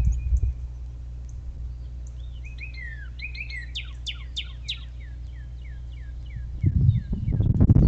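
A songbird singing a varied run of quick chirps and down-slurred whistles, then a series of about a dozen repeated falling notes, over a steady low hum. A low rumble covers the first half second and comes back near the end.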